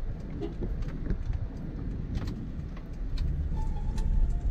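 A vehicle travelling slowly on a rough road: a steady low rumble with scattered knocks and rattles.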